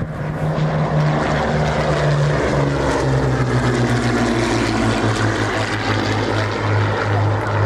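Rolls-Royce Merlin V12 piston engine of a Second World War fighter flying past. The engine note drops in pitch about three seconds in as the aircraft passes, then holds steady and loud.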